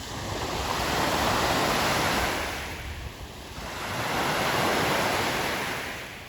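Lake Superior waves breaking on a beach, a rushing surge that swells and ebbs twice as two waves come in.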